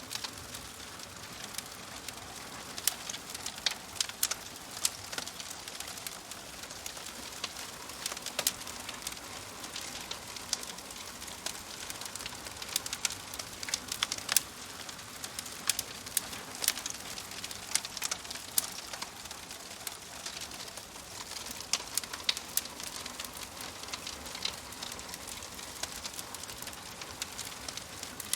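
Wood fire crackling: irregular sharp pops and snaps over a steady soft hiss of burning.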